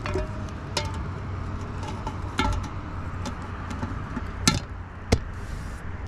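Metal cookware clinking and knocking: a lid and ladle against a steel cooking pot as the lid is set on it. Several sharp clinks with brief ringing, the loudest about five seconds in, over a steady low rumble.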